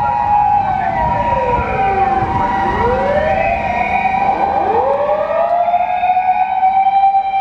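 Japanese fire engine sirens on an emergency run: one holds a steady high wail while another drops to a low pitch and winds back up, twice.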